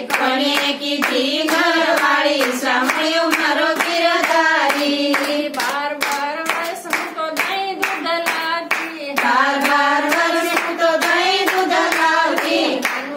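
Group of women singing a Gujarati devotional bhajan together, keeping time with steady rhythmic hand-clapping and no instruments.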